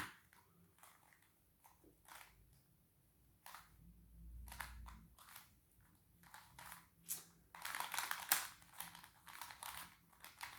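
Plastic Square-1 twisty puzzle being turned by hand: scattered scratchy clicks of the layers turning, with a quick run of turns near the end and a dull low bump about four seconds in.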